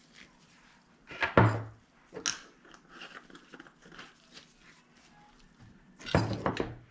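Kitchen handling sounds: a knock and rattle about a second and a half in, a smaller knock soon after, and a louder clatter near the end, as seasoning containers and utensils are handled and set down.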